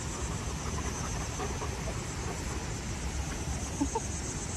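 Steady outdoor rush of wind and river water, with a high insect drone and a few faint Canada goose calls about four seconds in.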